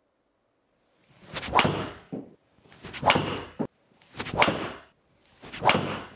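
Four golf driver swings in quick succession, about a second and a half apart. Each is a rising swish of the club through the air that ends in the sharp crack of the driver striking the ball.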